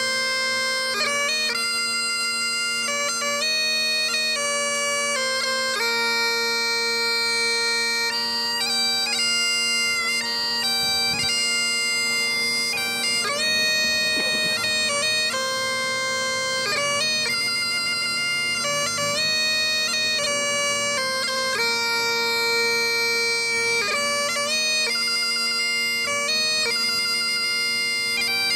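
Highland bagpipes playing a slow lament. Long held melody notes sound over the steady hum of the drones.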